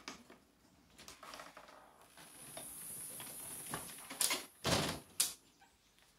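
A glass-panelled house door being opened and handled, with a high hiss for a couple of seconds, then a few sharp knocks and one heavier thump about four and a half seconds in.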